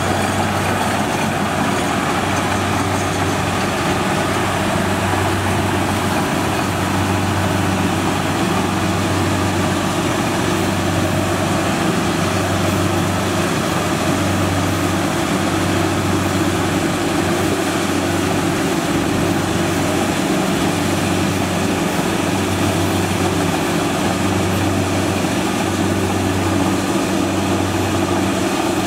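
Kubota rice combine harvester's diesel engine running steadily as the machine moves. It gives a loud, continuous low drone that swells and dips about every two seconds.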